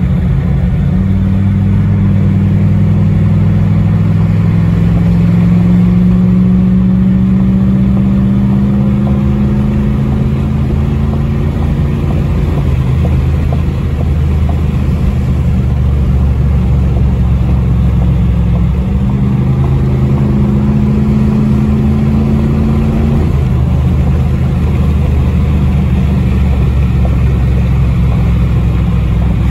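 A Jeep Grand Cherokee 5.9 Limited's 5.9-litre V8, heard from inside the cabin with the exhaust cutout closed, pulling hard at highway speed. The engine note climbs steadily for about ten seconds and then falls. It holds steady, then a second, shorter pull climbs for a few seconds and falls again near the end.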